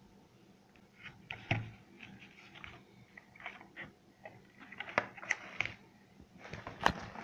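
A black digital LED alarm clock's plastic casing handled and turned over by hand: scattered clicks, taps and rustles, with sharper knocks about one and a half, five and seven seconds in.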